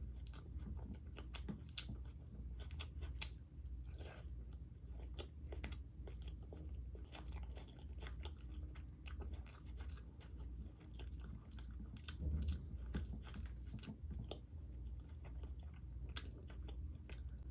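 Close-miked mouth sounds of a person chewing large mouthfuls of mutton curry and luchi: irregular wet smacks and clicks over a steady low hum.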